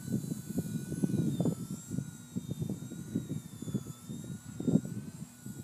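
Strong wind buffeting the microphone in gusts, over the thin high whine of a Blade mCP X micro RC helicopter's motor and rotors, its pitch wavering slightly as it flies.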